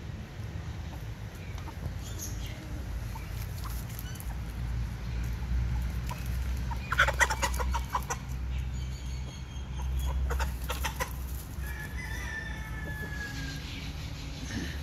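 Thai aseel chickens clucking in quick bursts, with a longer, slightly falling call about twelve seconds in.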